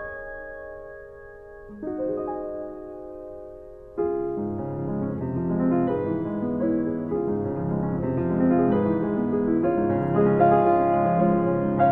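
Background piano music: soft held chords, turning louder and fuller with lower notes about four seconds in.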